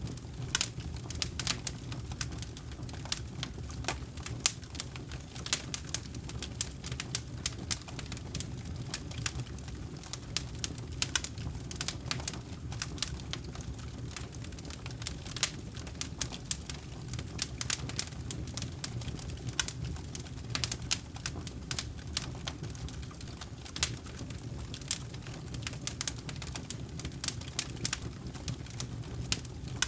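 Campfire burning: wood crackling and popping in many quick, irregular snaps over a steady low rumble of the flames.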